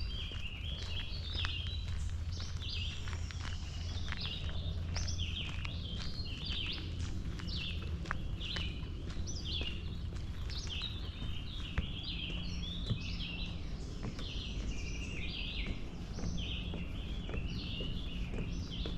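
Many small birds chirping all the while in short, quick, overlapping notes, over a low steady rumble. Faint footsteps on a path go along underneath.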